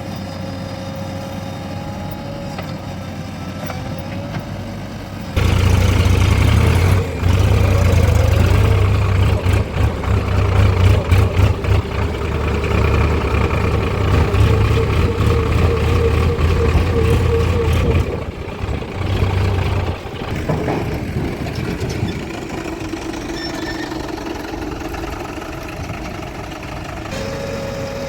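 Heavy diesel engine running steadily, then suddenly much louder and deeper about five seconds in, with a whine over it. It drops back to a steady idle after about thirteen seconds.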